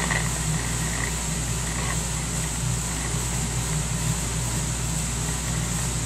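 CB base-station radio's speaker giving steady static hiss with a low hum underneath while no one is talking on the channel.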